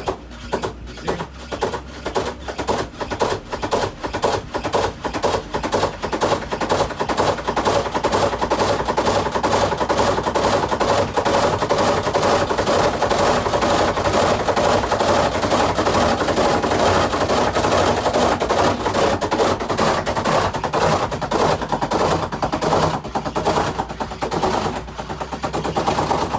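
Samsung WA48H7400AW top-load washer in its spin cycle, the tub shaking and knocking rapidly against the cabinet: a few knocks a second at first, quickening into a continuous loud clatter that cuts off near the end. The ugly tapping of an unbalanced spin, which is usually put down to worn tub suspension rods.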